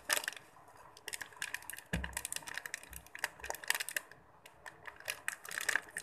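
Plastic snack wrapper crinkling and crackling as hands twist and tear it open, a dense irregular run of crackles, with a dull knock about two seconds in.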